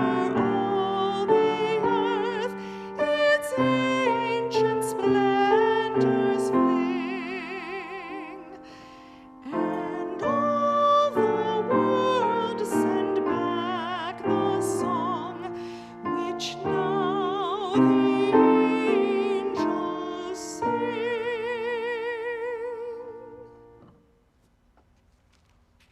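Solo voice singing in a classical style with strong vibrato, accompanied by piano; the music ends about 24 seconds in, leaving near silence.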